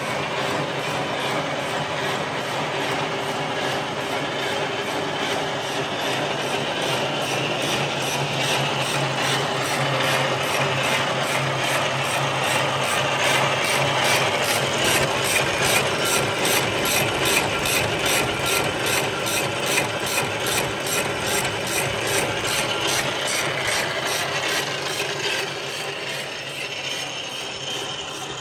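CS-C barbed wire making machine running: its gears, chain drive and wire-twisting mechanism give a steady, rapid, regular mechanical clatter as barbed wire is produced and wound onto the take-up reel.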